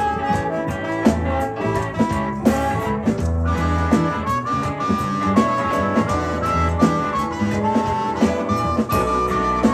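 Live band music with a harmonica playing the lead through a microphone, over a steady drum beat and bass.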